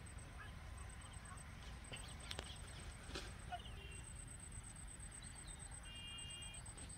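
Faint outdoor ambience: a steady, high-pitched pulsing buzz, two light clicks around the middle, and a short pitched call about six seconds in.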